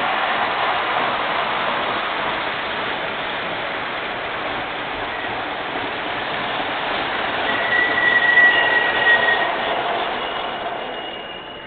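MTH O-gauge R40 subway model train running on three-rail track, its running noise growing louder as it approaches and passes close by, then falling away near the end. A brief high squeal sounds about eight seconds in.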